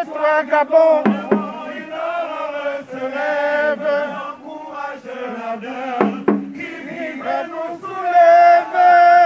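A man singing a chant-like song into a handheld microphone, holding long notes, the longest and loudest near the end.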